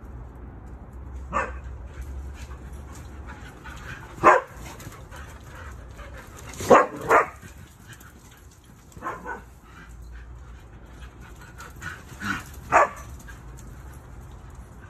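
Dogs barking in play: short single barks every few seconds, several of them coming in quick pairs, with the loudest about seven seconds in and again near the end.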